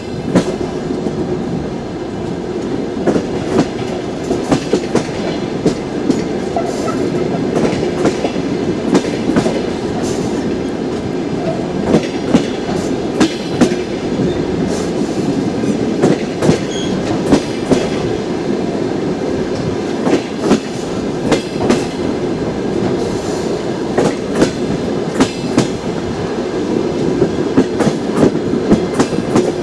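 Passenger train's wheels clacking over rail joints as the train pulls out of the station: sharp clicks in quick groups every second or so over a steady rolling rumble.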